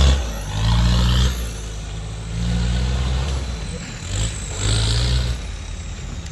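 Off-road 4x4's engine revving in about three surges of roughly a second each, the throttle pulsed while it crawls up a steep climb.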